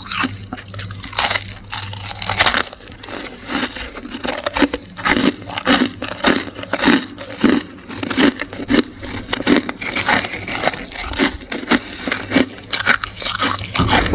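Dry, flaky freezer frost being chewed, crunching in quick, even strokes of about two a second.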